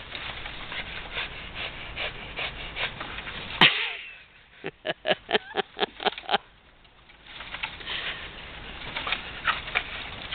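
A leafy tree limb rustles and thrashes as a pit bull hangs from it by its jaws and tugs, with a sharp crack about three and a half seconds in. Around five to six seconds in there is a quick run of about ten short breaths from the dog, then the limb rustles again.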